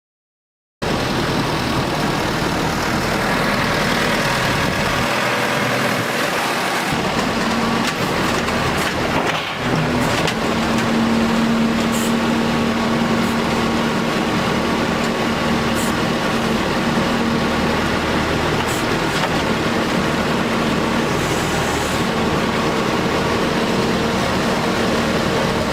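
Excavator's diesel engine running steadily at work, starting abruptly just under a second in. A droning note strengthens about ten seconds in, and there are a few faint ticks.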